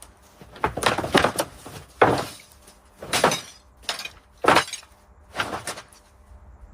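Scrap debris being tossed during a yard clear-out: a string of about half a dozen clattering crashes, roughly a second apart.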